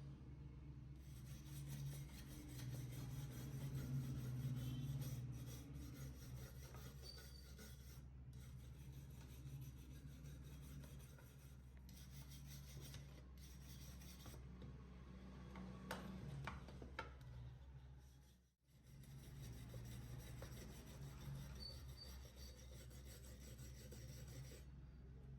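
Hand rubbing and scraping on rusty metal, like filing or sanding rust off an old cutter, as a continuous scratchy sound over a steady low hum. The sound drops out briefly about two-thirds of the way through.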